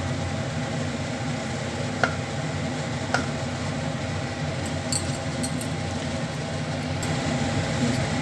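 Cooked rice being tipped into a cooking pot for layering a biryani, with a few sharp clinks of the serving vessel against the pot: one about two seconds in, another a second later, and a quick cluster past the middle. A steady hum runs underneath.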